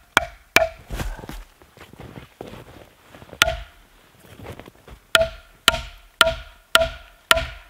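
An axe knocking a dense white oak wedge into a natural crack in a log to split it. There are two knocks at the start and one more a little past the middle, then a steady run of knocks about two a second near the end, each with a short wooden ring.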